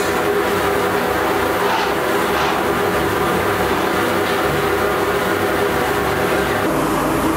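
Powder-coating booth's extraction blower running, a loud, steady rushing noise with a low hum.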